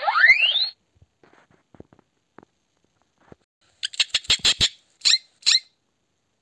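Guinea pig wheeking: a rising whistle that cuts off under a second in. After a near-quiet gap, a hamster gives a quick run of short, sharp squeaks about four seconds in, followed by two more falling squeaks.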